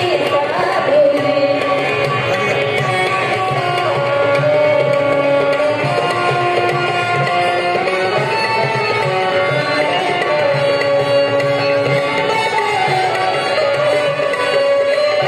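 Music: a melody of long held, gliding notes over a steady drum rhythm.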